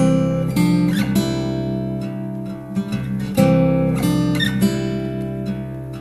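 Background music: a guitar strumming chords, with new chords struck about a second in and again past the middle.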